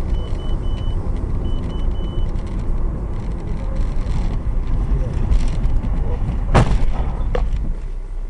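Low road and engine rumble of a moving car, recorded from inside the car by a dash camera. A high electronic beep repeats in sets of three during the first couple of seconds. About six and a half seconds in there is a sharp bang, followed by a smaller knock under a second later.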